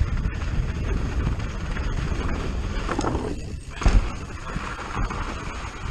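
Commencal Clash mountain bike rattling and its tyres crunching over a rough dirt and gravel downhill trail, a steady rumble full of small clicks and knocks. Just before the four-second mark there is a brief quieter moment and then a single heavy thud as the bike lands off a roller.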